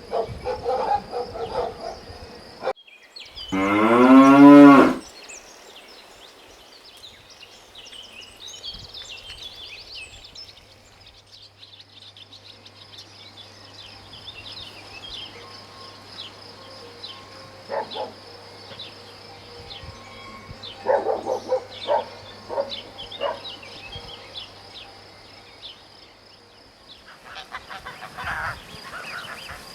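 A cow mooing once, one long moo of about a second and a half, a few seconds in. Around it are a faint steady high-pitched tone and scattered light clicks.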